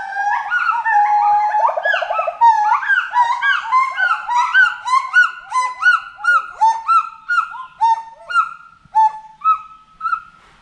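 Gibbons singing: several voices overlap in rising and falling whooping hoots, with a quick trill about two seconds in. The calls then settle into a fast, evenly spaced series of rising hoots that stops near the end.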